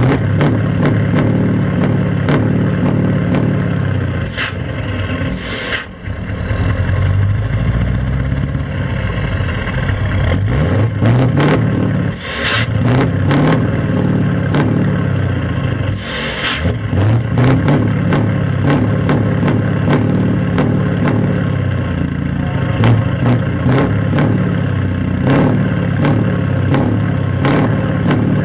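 Scania 164L 480's V8 diesel revved again and again through an open straight exhaust pipe, the pitch climbing and falling back in long sweeps. A few short hisses come between some of the revs.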